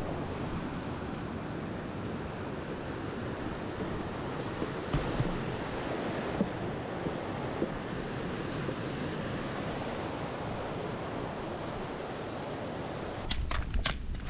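Steady rushing noise, with a quick run of sharp clicks and a low thump near the end.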